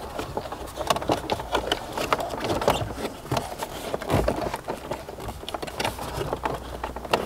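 Irregular clicks, knocks and plastic clatter as a replacement head unit and its wiring loom are pushed back into a MINI F56's dashboard.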